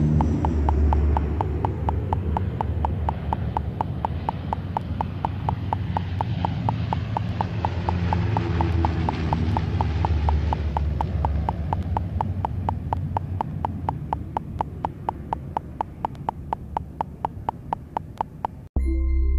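Canadair CL-415 water bombers' turboprop engines droning in a low flypast, loudest as one passes close about ten seconds in, then fading away, with a steady ticking about three times a second underneath. Near the end the sound cuts off abruptly into a short electronic music jingle.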